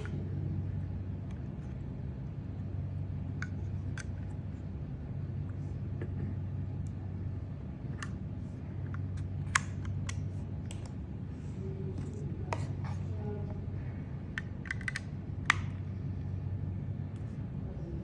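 Irregular light clicks and taps over a steady low hum, with two louder clicks about ten and fifteen seconds in.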